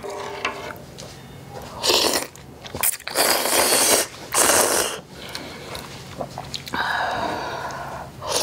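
Loud, close-miked slurping of spicy ramyeon broth from a large spoon: three noisy slurps, about two, three and four and a half seconds in, the middle one the longest.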